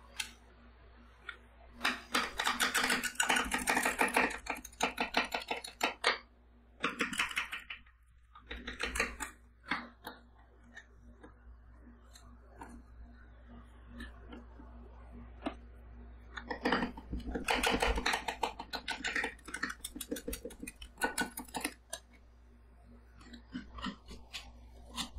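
Two metal spatulas chopping and scraping golden-kiwi ice cream mixture on a steel cold plate, making rapid rattling clicks. The clicking comes in two long fast runs, about two seconds in and again from about seventeen seconds, with slower scattered taps and scraping between.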